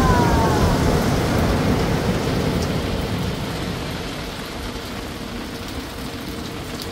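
Heavy ocean surf: a large wave breaks and its washing rush is loudest at first, then slowly fades over several seconds.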